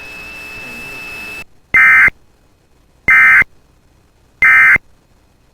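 Emergency Alert System End-of-Message signal: three identical short bursts of buzzing digital data tones, about a second and a half apart. They follow a second and a half of faint hiss with a thin, steady high tone left after the spoken warning.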